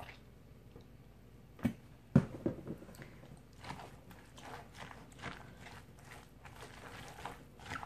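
Two sharp knocks about two seconds in, then a plastic fork stirring wet chopped coleslaw in a plastic container: a run of soft, irregular scrapes and clicks.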